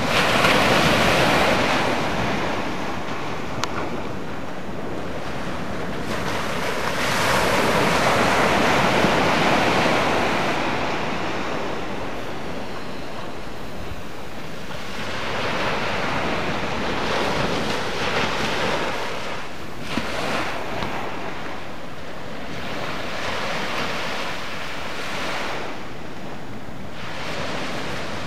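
Ocean surf breaking on a sandy beach: waves crash and wash up the shore in swells that rise and fall every several seconds, the loudest about a second in.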